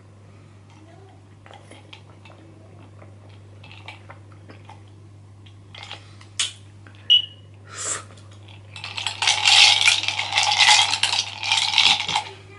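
A straw rattling and scraping ice and pineapple chunks inside a glass mason-jar mug. There are scattered single clinks at first, then a loud, fast rattle from about nine seconds in until just before the end.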